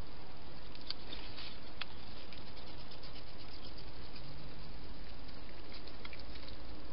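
Wild hedgehogs moving about and feeding: scattered short, sharp clicks and scratches, bunched about a second in and again near the end, over a steady hiss.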